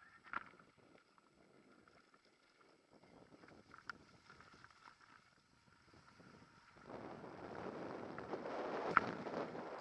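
Mountain bike rolling down a dirt singletrack: tyre noise on the dirt and the bike rattling with occasional sharp clicks. About seven seconds in, wind on the microphone and the trail noise become louder and rougher.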